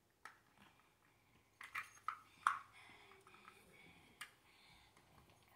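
Small plastic toy pieces clicking and knocking together as a child handles them: a handful of sharp clicks, the loudest about two and a half seconds in.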